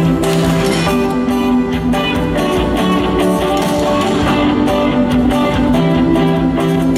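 Live band playing, with strummed guitar to the fore over keyboard and drums.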